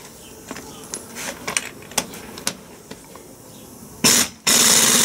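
Light clicks and knocks of tools and sockets being handled, then about four seconds in a pneumatic impact wrench fires in a short burst and, after a brief pause, runs steadily, hammering on a nut.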